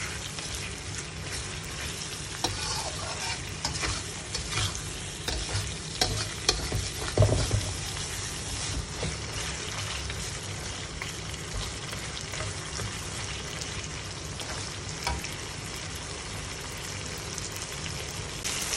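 Beef pieces in curry spice paste sizzling in a steel wok while a slotted metal spatula stirs and scrapes them, with scattered clicks and scrapes of the spatula on the pan, the loudest knocks about six to seven seconds in. The beef is being fried until tender.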